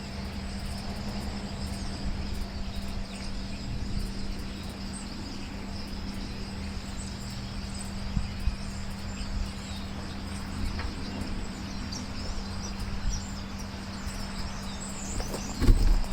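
Steady high insect chirring, like crickets, over a constant low hum, with one low knock near the end.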